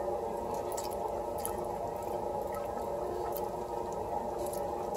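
Citrus tahini sauce simmering in a cast iron skillet with chicken thighs and green beans: faint bubbling and scattered light pops over a steady hum.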